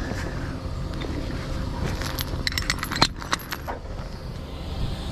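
Steel recovery chain and its grab hook clinking and rattling as they are handled on the asphalt, a quick cluster of metallic clinks about two seconds in with the sharpest a second later. Under it the tow truck's engine runs steadily.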